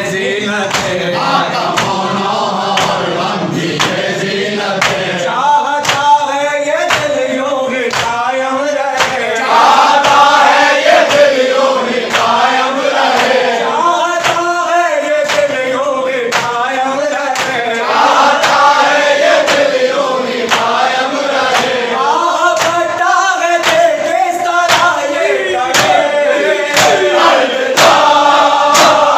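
Group of men chanting a noha, a Shia lament, in chorus, over a steady beat of sharp hand slaps on the chest (matam).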